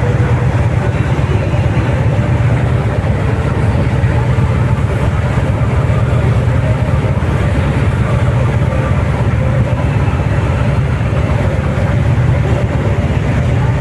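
A river excursion boat's engine running steadily, a loud even low rumble heard from on board.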